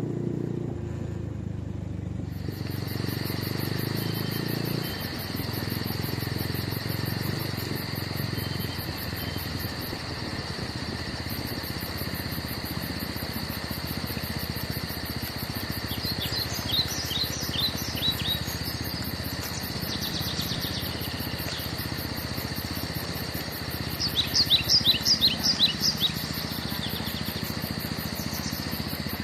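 Forest insects droning steadily with a fast high pulsing, while a bird calls in short runs of quick chirps, loudest about three-quarters of the way through.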